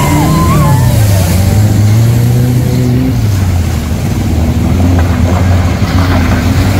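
Motor vehicle engine running steadily. Its pitch drops within the first second, dips again about three seconds in, and rises slightly near the end as the speed changes.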